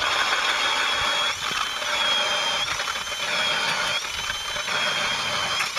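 Cordless drill driving a hand-held ice auger, boring a hole through lake ice. The motor whine wavers up and down in pitch as the load changes, over a steady grinding noise.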